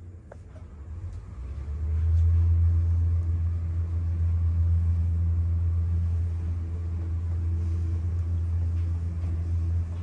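Schindler passenger elevator car travelling upward: a low, steady hum of the ride that swells in over the first two seconds as the car gets under way, then holds.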